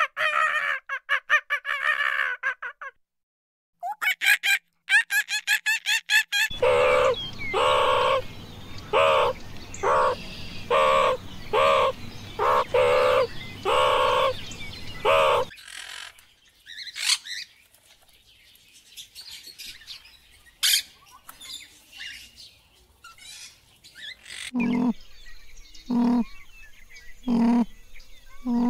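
A run of different animal calls, mostly bird and fowl calls. A fast warbling call comes first. After a short silence come quick pulsed calls, then about a dozen loud calls at an even pace. A stretch of faint, scattered chirps follows, and near the end a low call repeats about every second.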